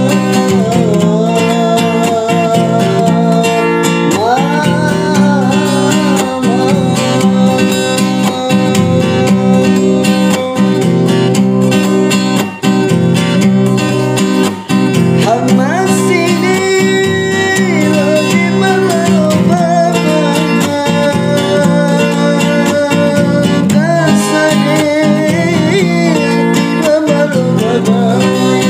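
Acoustic guitar strummed under a solo singing voice, with sung phrases coming and going over the steady guitar.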